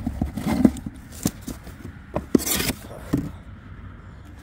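Short knocks and clinks of mug gift sets being handled in a cardboard box, with cardboard scraping and one louder rustling scrape about two and a half seconds in.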